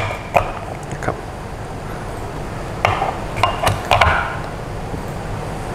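Short knocks and clinks of metal parts being handled inside a Datapaq TB5016 thermal barrier box: two early, then a quick cluster about three to four seconds in, over a steady low hum.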